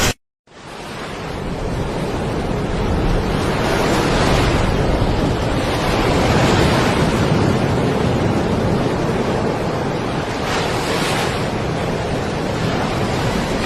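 Steady rush of surging water, swelling and easing every few seconds, with wind buffeting the microphone.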